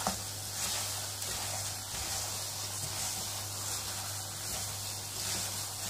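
Bread halwa frying in butter in a pot, a steady sizzling hiss, with a wooden spoon stirring through the thick mixture.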